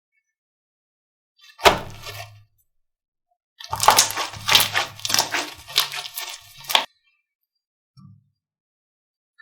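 Crunchy slime being pressed and squeezed: one sharp crackle about one and a half seconds in, then a run of crackles and pops for about three seconds, and a soft squish near the end.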